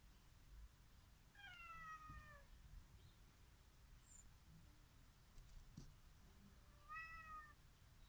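A domestic cat meowing twice, faintly: a drawn-out meow that falls in pitch about a second and a half in, and a shorter one near the end.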